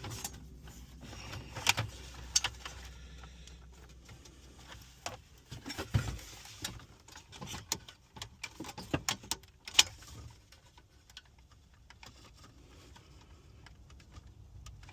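Scattered clicks, taps and rattles of hands handling a car radio unit and its plastic dash parts and wiring, with a few sharper knocks.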